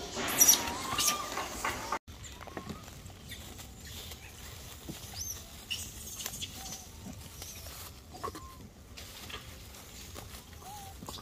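Macaques giving shrill screeches for about two seconds, cut off suddenly; after that, only faint short chirps and a few soft calls.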